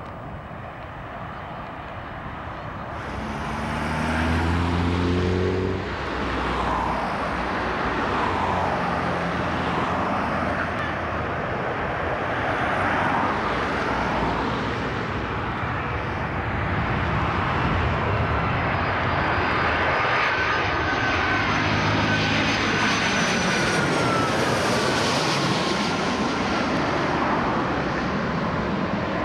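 Twin-engine jet airliners' engines running loud at take-off thrust, rising in level about three seconds in. Later an engine whine slides down in pitch as a landing airliner passes low overhead on approach.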